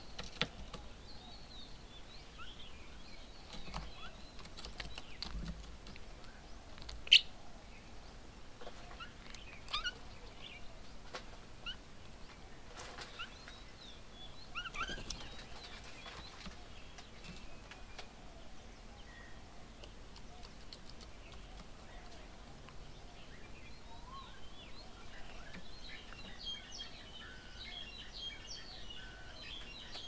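Several birds chirping and calling now and then, with one sharp, loud sound about seven seconds in and a denser run of chattering calls in the last few seconds.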